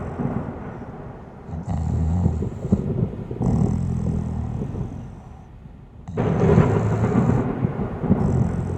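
A sleeping person snoring: rough, rattling snores in repeated bursts, one about every two seconds, with short quieter breaths between.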